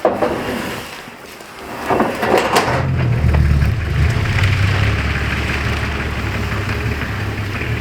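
A few wooden knocks, then a steady low engine rumble that sets in about three seconds in and runs on.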